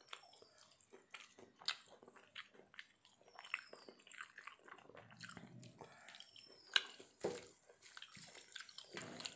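Faint eating sounds: chewing mouthfuls of rice and curry eaten by hand, with fingers working the rice on a steel plate. Scattered small clicks throughout, and a sharper click about two-thirds of the way through.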